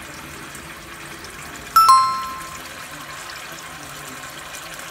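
Tap water running steadily into a stainless steel bowl, rinsing salmon roe in a sink. Just under two seconds in, a bright metallic ding rings out and fades within about a second.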